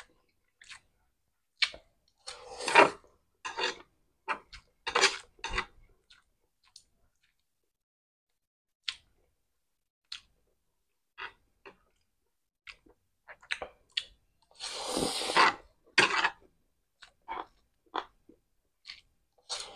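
Close-miked eating of pancit noodles: chewing sounds with scattered short clicks and a few louder noisy bursts, the loudest about three seconds in and around fifteen seconds in.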